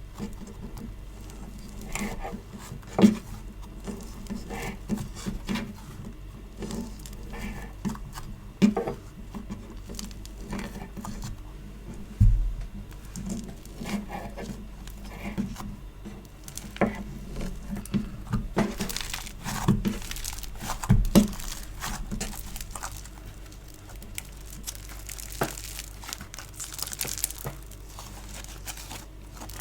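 Hands squishing, pressing and pulling apart a sticky play compound (foam clay or slime), giving irregular sticky crackles and pops with a few louder snaps; the crackling grows denser about two-thirds of the way through.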